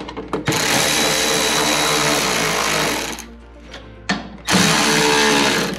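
Cordless electric ratchet running a bolt into the underside of the front bumper, in two runs: a long one of nearly three seconds, then a shorter one of just over a second.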